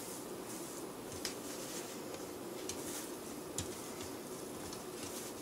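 Quiet room hum with a few soft, light taps and rustles as hands unroll and press refrigerated pizza dough on a perforated aluminium pizza pan.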